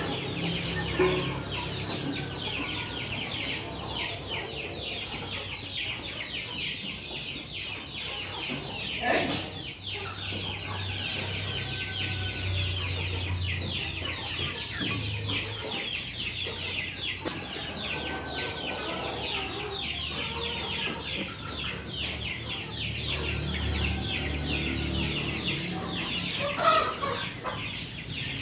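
Chickens clucking, with two louder calls about nine seconds in and near the end, over a steady high-pitched chirring that runs throughout.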